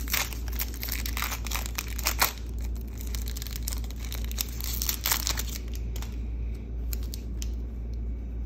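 Foil wrapper of a Topps baseball card pack being torn open and crinkled, with many sharp crackles that are loudest in the first five seconds. It then goes quieter as the stack of cards is slid out and handled.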